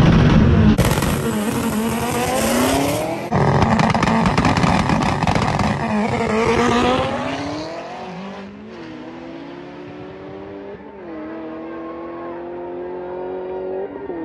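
A turbocharged B-series Honda Civic and a six-speed manual Camaro ZL1 racing at full throttle. The engine note climbs in pitch through each gear and drops back at every upshift. The sound is loud at first, then fades about halfway through as the cars pull away, still shifting up through the higher gears.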